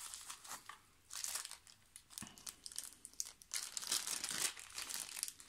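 Plastic packaging crinkling and rustling in irregular bursts as a miniature is unwrapped by hand.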